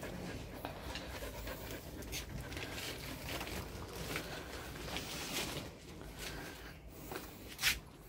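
Dog panting steadily, with light scuffing; a single sharp click near the end.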